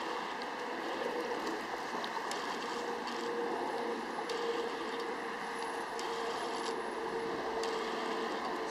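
Minolta AF 35-80mm f/4-5.6 lens being driven to focus by the camera body's screw-drive autofocus motor: a faint whirr with scattered light clicks, heard over a steady wash of wind and waves.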